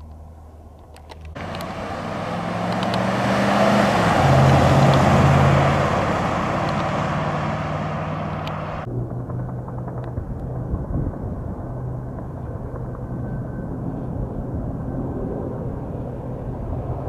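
Pickup truck driving past on a highway: tyre noise and engine hum come in suddenly, rise to a peak and fall away. Near nine seconds it gives way to a duller, steady low drone.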